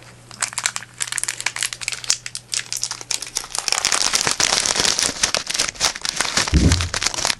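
Small plastic bags of Aquabeads crinkling as they are handled, with scattered clicks; about halfway through the crinkling gets louder and denser, and there is a dull bump near the end.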